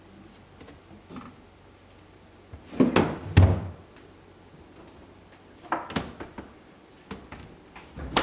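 A few separate knocks and clunks of hard objects being handled and set down. The heaviest, with a dull thud, comes about three seconds in; lighter clatters follow around six and eight seconds.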